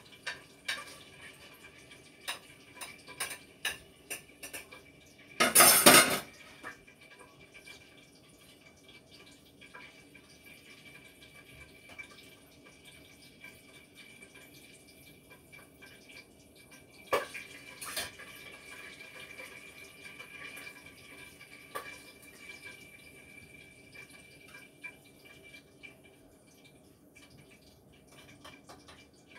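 Utensils clinking and scraping against pots and dishes at the stove: a run of sharp clicks in the first few seconds, one loud half-second rush of noise about six seconds in, then a few scattered clinks. A faint steady high whine runs underneath.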